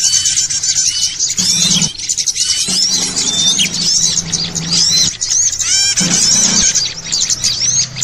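A dense, noisy chorus of many small songbirds chirping and twittering over one another, in a bird-lure recording that mixes frantic small birds with sooty-headed bulbuls. A low drone comes and goes underneath.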